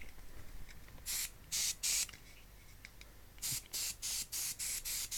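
Aerosol can of Servisol foam cleaner sprayed in short hissing squirts onto a keyboard's membrane circuit sheet: three squirts, then, after a pause of about a second, a quick run of about nine.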